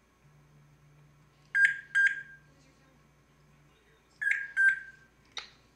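African grey parrot giving two pairs of short, sharp beep-like calls, each call ending in a flat tone that fades, with a single sharp click near the end.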